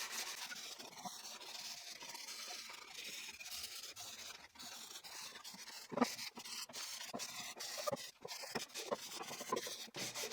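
Fine 220-grit sandpaper rubbed by hand over pine wood in quick back-and-forth strokes, with a few light knocks in the second half.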